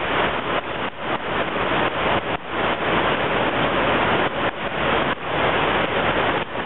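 Storm wind rushing and buffeting over the microphone: a loud, dense rushing noise that keeps dipping and surging in quick gusts.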